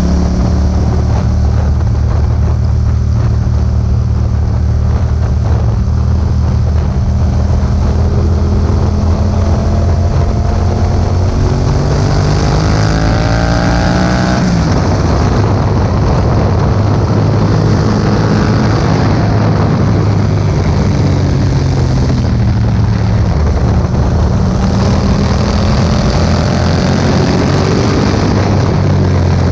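2018 Yamaha MT-07's 689 cc parallel-twin engine running through an Akrapovic exhaust, with wind noise on the microphone. It runs steadily, pulls up in pitch under acceleration, drops sharply about halfway through, then builds in pitch again near the end.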